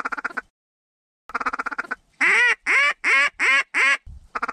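Hand-blown duck call: quick runs of rapid chuckling clucks, then a series of five loud, drawn-out quacks, each falling in pitch, the hail and greeting calls used to turn passing ducks toward the decoys.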